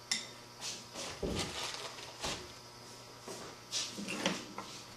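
Hands working soft clay on a tabletop, smoothing and blending a coil into a joint: a series of short rubbing scrapes and light knocks, about eight in five seconds.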